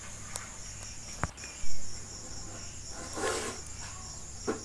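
Crickets chirping steadily. Over them come small clicks and rustles of copper wire being twisted by hand onto a ceiling fan's stator coil, with one sharp knock a little under two seconds in.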